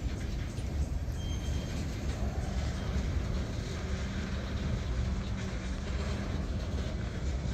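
Freight cars of a Norfolk Southern manifest train rolling past: a steady low rumble of steel wheels on rail as a lumber-loaded flatcar and then tank cars go by.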